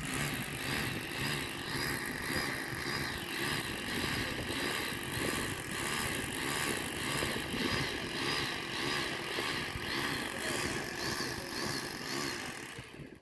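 Corded electric drill running steadily as it bores into a concrete block, with a slow pulsing in the sound; it cuts off at the end.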